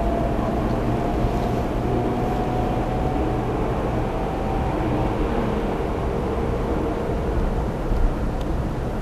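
Inside a JR 300-series Shinkansen carriage while running: a steady low rumble of wheels and running gear, with a faint motor whine that rises slightly and fades about halfway through.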